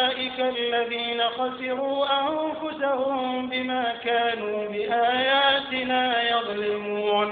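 A male imam reciting the Quran in a slow melodic chant. He holds long notes that bend up and down in pitch, with short breaks between phrases.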